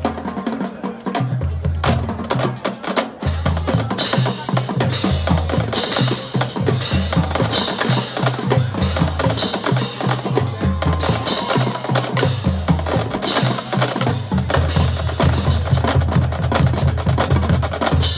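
Percussion-heavy music: snare and bass drums with a stepping bass line, accompanying a marching band's dance routine.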